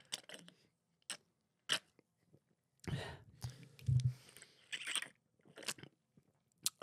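Beer drunk from a can: several swallows and gulps, the strongest about four seconds in, with a few sharp clicks in the first two seconds.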